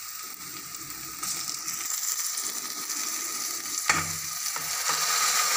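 Chopped onions sizzling in hot oil in a kadai, the sizzle growing louder about a second in. Just before four seconds there is a knock as chopped tomatoes are tipped in from a bowl, and the sizzling carries on louder.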